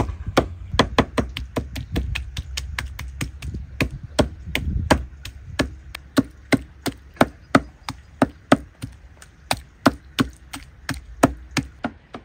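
Cleaver chopping raw meat on a wooden stump chopping block: a steady run of sharp chops, about three a second.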